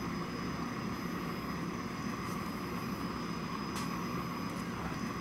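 Steady room noise: an even hiss and low hum with a faint constant high whine, and two faint ticks a little after two seconds and near four seconds in.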